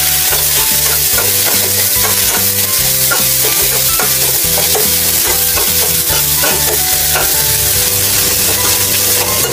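Onions and leftover pork sizzling in a hot oiled wok while a spatula stirs and scrapes them around the pan, with frequent small scraping ticks over a steady sizzle.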